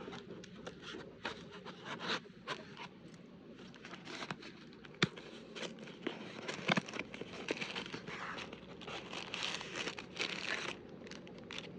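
Packaging being handled and opened by hand: irregular crinkling, rustling and tearing with scattered sharp clicks, busiest near the end.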